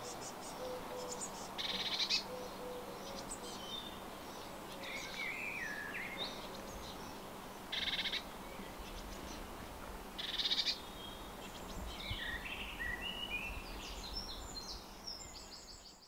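Wild birds singing and calling over a steady outdoor hiss: a short, high, dense trill comes three times, about two, eight and ten seconds in, with chirps and whistled notes between.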